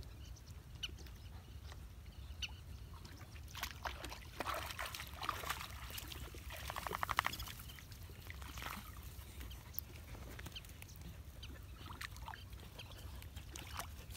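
Dogs wading through a shallow muddy puddle, with scattered small splashes and sloshing water. About halfway through comes a brief, fast rattling sound.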